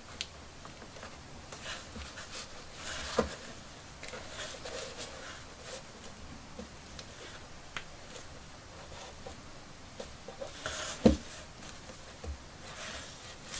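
Quiet handling noise of a doll's head being worked on: rustling of synthetic hair and cloth and light scratching as a small screwdriver tip tucks loose hair into a bun. Soft clicks run through it, with two louder knocks about three seconds in and about eleven seconds in, the second the loudest.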